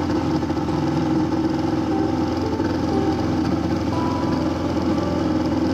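Boat's outboard motor running steadily under way, with the churn of the wake.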